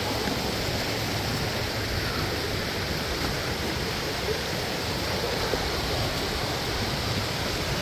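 Waterfall: water falling and rushing in a steady, unbroken noise.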